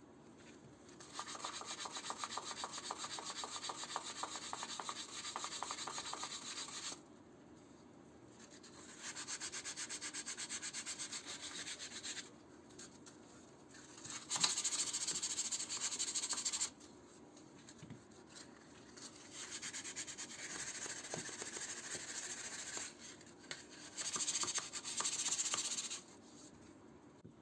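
Sanding by hand, sandpaper rubbing on a surface in five spells of a few seconds each, with short pauses between.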